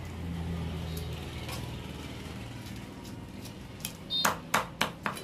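Knife scraping scales off a large katla fish on a wooden chopping block: a quick run of four or five loud strokes about four seconds in, over a faint low hum that fades after the first two seconds.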